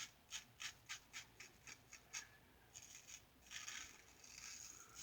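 Star Super Six single-edge safety razor with a Gem blade scraping through lathered stubble, faint. First a run of short quick strokes, about three or four a second, then from about halfway a few longer, drawn-out strokes.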